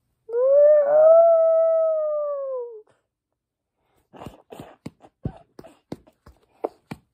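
A child's voice holds one long drawn-out call for about two and a half seconds, rising a little and then sliding slowly down in pitch. After a short pause comes a quick run of light taps and knocks, about four a second.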